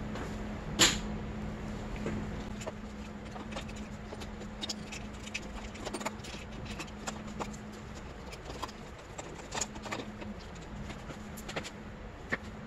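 Light metal clicks and knocks, scattered and irregular, as a camshaft and cam chain are worked into a Honda CRF250R cylinder head by hand, the loudest click about a second in. A steady low hum lies underneath and stops about ten seconds in.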